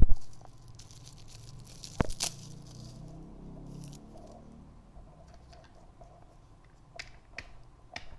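Quiet room with one sharp tap about two seconds in, a faint low hum for the first few seconds, and a few soft clicks near the end.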